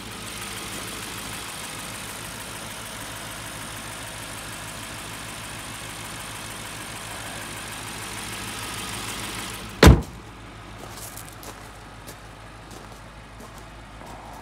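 Audi S6's 4.0-litre twin-turbo V8 idling steadily with the bonnet open, then the bonnet slammed shut with one loud bang about ten seconds in, after which the idle is heard more quietly.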